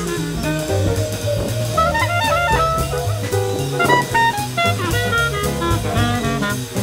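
Jazz music with a horn melody over a stepping bass line and drums.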